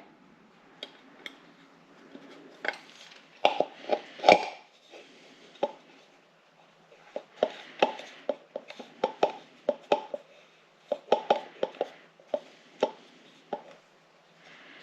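Irregular taps and clicks of fingers pressing a new rubber gasket into the groove of a Subaru EJ25 valve cover, coming in quick clusters.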